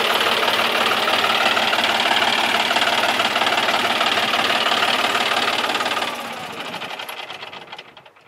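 John Deere 5045 D tractor's three-cylinder diesel engine running steadily while the tractor sits stuck in mud, the sound fading away over the last two seconds.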